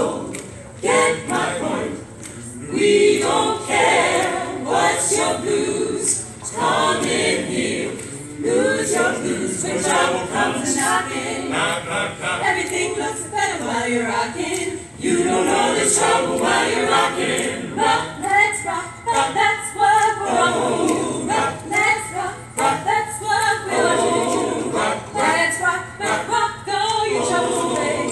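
Mixed choir of men and women singing a cappella.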